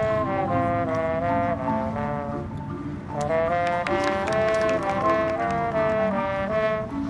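Marching band brass section playing a melody, note changing to note, with a short softer passage around the middle before the full brass comes back in.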